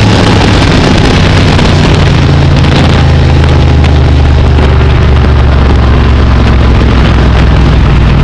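Dirt-track modified race car's engine heard loud from inside the cockpit, running at steady low revs. From about two seconds in the higher sound fades and a low, even engine drone is left.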